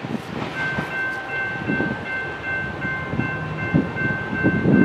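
Grade-crossing warning bell ringing in an even, repeating pulse, over the low rumble and knocking of a freight train on the rails.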